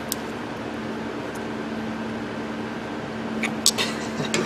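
Steady background hum with a constant low tone. A few light metallic clicks come near the end as the air impact wrench's motor housing and rotor are handled.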